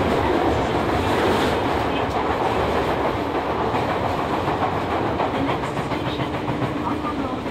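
Running noise inside a chopper-controlled Toei 10-000 series subway car: steady wheel-on-rail rumble with clickety-clack over rail joints, easing a little as the train slows into the station. A faint steady hum joins about six seconds in.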